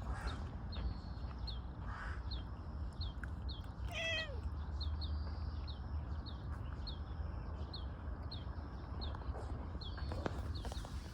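A tortoiseshell cat gives one short mew with a falling pitch about four seconds in. Behind it runs a steady string of faint high chirps, about two a second.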